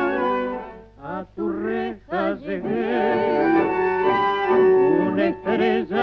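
A recorded tango song sung in Spanish: a singer's voice with strong vibrato over the orchestra, in short phrases with brief breaks about one and two seconds in.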